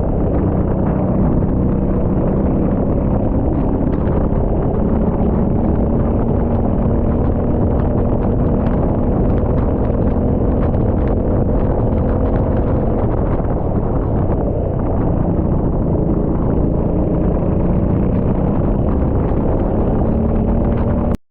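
Rental kart engine running, heard onboard with wind buffeting the microphone; its pitch rises and falls gently. The sound cuts off abruptly near the end.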